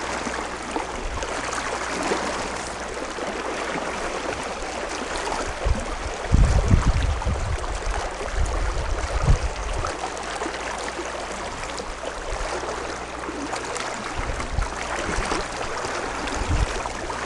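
Steady rush and lapping of river water around a drifting boat, with low rumbling bumps about six seconds in and again near the end.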